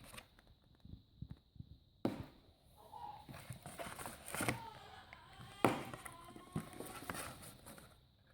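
Quiet handling noises: scattered soft knocks and clicks, with faint voice sounds in the middle.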